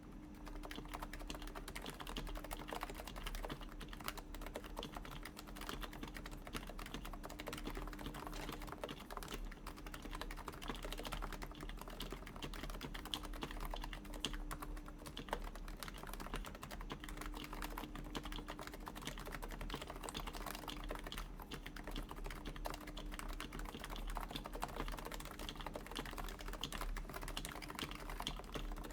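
Continuous typing on a Topre Realforce keyboard: its lubed and silenced Topre variable-weight electrocapacitive switches and steel plate give a dense run of soft, rounded keystrokes with no pauses.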